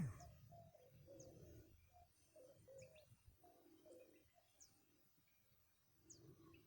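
Faint bird calls: short high falling chirps repeated every second or so, with lower short notes between them. A brief thump right at the start.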